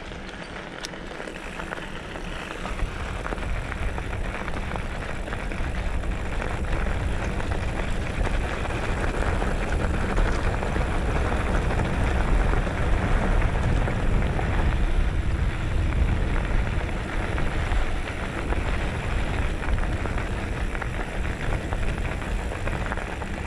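Mountain bike rolling fast down a gravel track: tyres crunching and rattling over loose stones under heavy wind rumble on the action camera's microphone, building over the first few seconds as the bike picks up speed, then holding steady.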